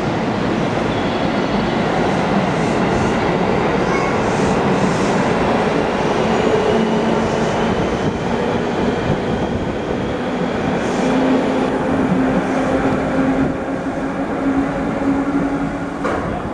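JR West 221 series electric train pulling away and gathering speed: the motor whine slowly rises in pitch over the steady rumble of wheels on rail.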